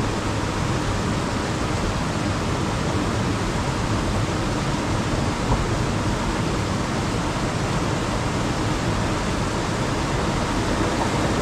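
Steady rushing of water flowing through the channel beneath a traditional water-powered stone flour mill (gharat), let in from above to drive its horizontal wheel.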